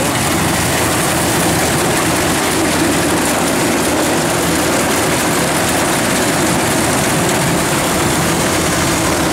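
Kubota DC-105X crawler combine harvester running steadily under load while harvesting rice: diesel engine with the cutter and threshing drum turning.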